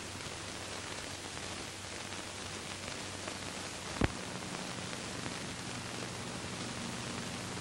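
Steady background hiss with a low hum, broken by one sharp click about four seconds in, after which the hum sits at a higher pitch.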